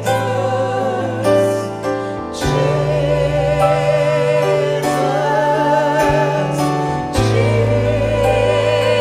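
Church worship team singing a gospel worship song with instrumental backing, the sung notes wavering in vibrato over a steady bass note that changes about two and a half seconds in and again about seven seconds in.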